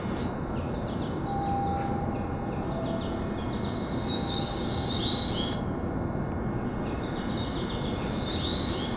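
Recorded bird chirping played from a station speaker: three runs of quick, high chirps over the steady hum of an underground train platform. It is the kind of bird-call guide sound Japanese stations play to mark stairs and exits for visually impaired passengers.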